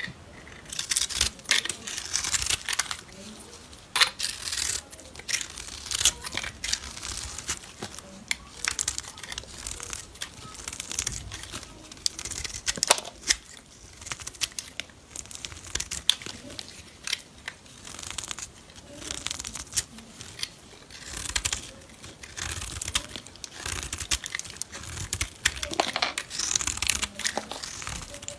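Knife cutting through bar soap: a run of crisp crackling, scraping strokes, one every second or two.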